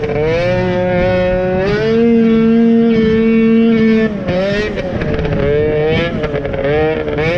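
Snowmobile's two-stroke engine under throttle while riding: the pitch climbs, holds high and steady for about two seconds, then drops off and wavers up and down as the throttle is worked.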